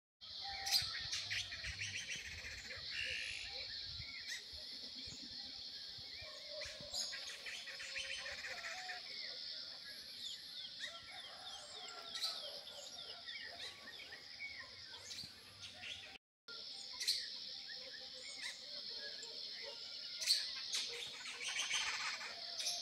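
Many birds chirping and calling together in a twilight chorus of short chirps and trills, over a steady high-pitched background hum.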